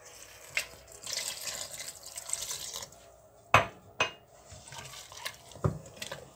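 Warm water poured into a steel bowl of semolina for about two seconds, then two sharp knocks and the wet sound of a hand mixing the damp semolina into a batter, with another knock near the end.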